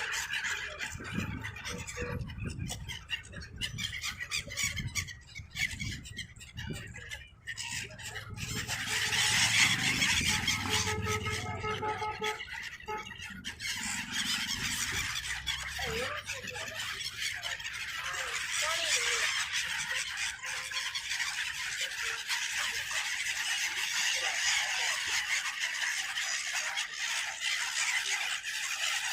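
A large flock of water birds calling together, a dense continuous chatter of squawks and squeals that grows fuller about a third of the way in.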